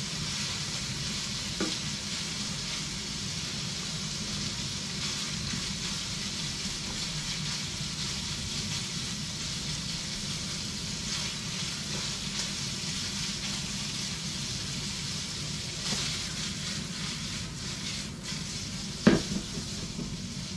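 Diced bacon sizzling and crackling steadily in a frying pan as it is stirred with a spatula, the bacon nearly cooked. There is one sharp knock near the end.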